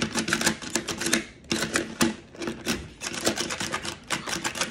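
Akedo Warriors battle figures' plastic controllers being worked rapidly by hand, a fast, uneven run of clicking and clacking as the figures strike at each other.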